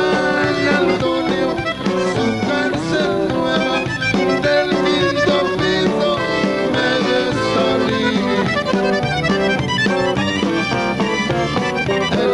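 Live Tejano band music with an accordion carrying the melody over the full band.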